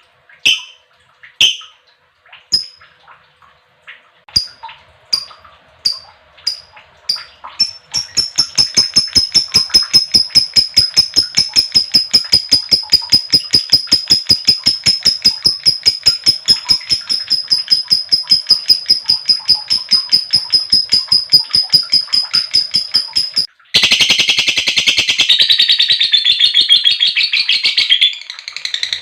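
Female lovebird calling: separate sharp chirps about once a second, then a long rapid chattering trill on a steady high pitch held for about fifteen seconds, the drawn-out 'ngekek' song. About 23 s in, it cuts abruptly to a denser, harsher chatter.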